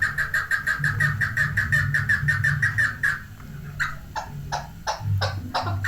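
Chukar partridge calling: a rapid run of clucking notes, about eight a second. After a short pause about three seconds in, slower separate notes fall in pitch, roughly three a second.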